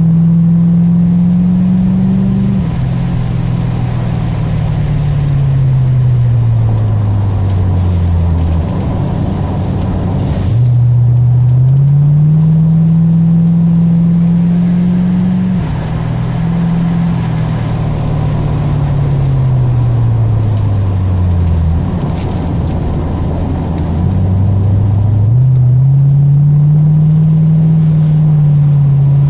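C4 Corvette's V8 engine under hard driving, heard from inside the cabin. Three times, the engine pitch climbs under acceleration, drops suddenly at an upshift, then slides down as the car slows for a corner, with steady tyre and road noise throughout.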